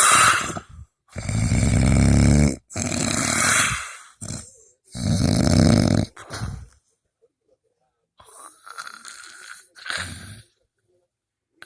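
Snoring: four loud snores of a second or so each, one after another, then a short pause and two quieter snores near the end.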